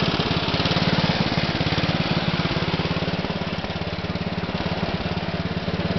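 Single-cylinder air-cooled engine of a 1972 MTD 960 garden tractor running steadily with a rapid, even beat.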